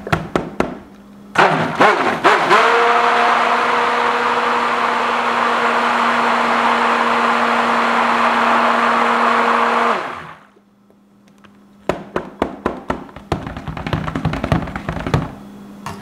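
Immersion (stick) blender running in a stainless steel bowl of soap batter for about eight seconds, spinning up and then running steadily before it stops, as the oils and chamomile-tea lye solution are emulsified. Before and after the run, a quick series of clicks and knocks from the blender head against the metal bowl as the batter is stirred.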